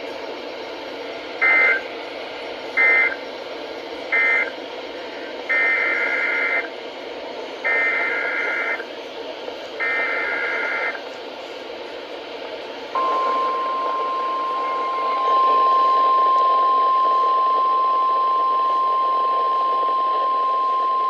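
NOAA Weather Radio broadcast over a receiver with static. It plays three short screeching SAME end-of-message data squawks, then three longer SAME header squawks announcing the next warning. About 13 s in, the steady 1050 Hz weather radio warning alarm tone begins and holds.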